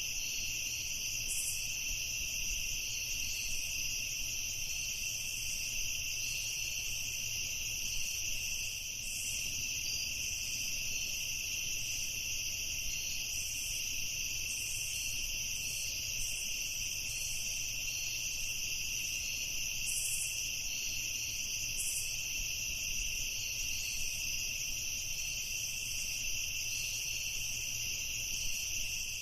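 Night chorus of crickets: a steady, unbroken high trilling, with a faint low rumble underneath.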